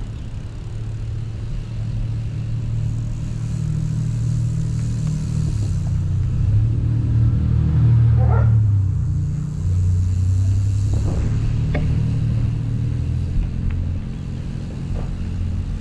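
Steady low wind buffeting on the microphone mixed with tyre noise from a mountain bike rolling on asphalt. It grows louder toward the middle, then eases.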